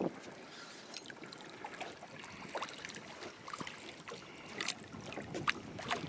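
Water lapping and trickling against a small fishing boat's hull, with scattered light clicks and ticks.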